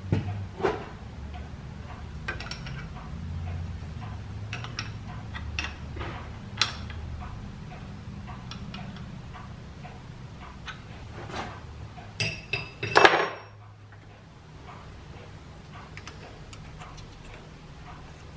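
Clicks and clinks of steel parts as a dividing head's index plate and sector arms are handled and fitted by hand, with a louder, ringing metallic clatter about 13 seconds in. A steady low hum runs underneath.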